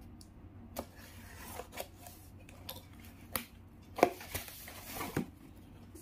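Box cutter slitting the packing tape on a cardboard box, then the cardboard flaps pulled open and the shredded-paper filler inside rustled: a string of irregular scrapes, rips and clicks, the loudest about four seconds in.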